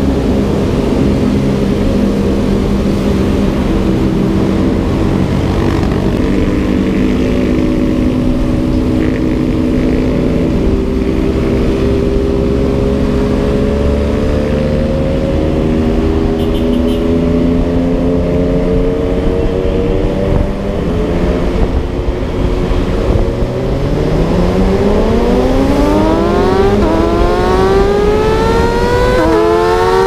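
Yamaha MT-09 motorcycle's inline three-cylinder engine running at a steady cruise, then revving hard through the gears from about two-thirds in: the pitch climbs, drops sharply at two upshifts near the end and climbs again.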